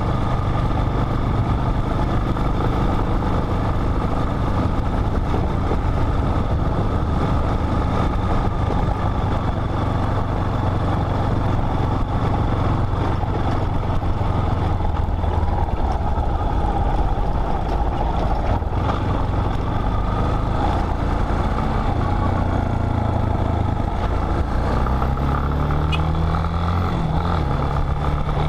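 Motorcycle engine running steadily on a dirt road, with wind and road noise over the helmet camera; the engine's pitch climbs near the end.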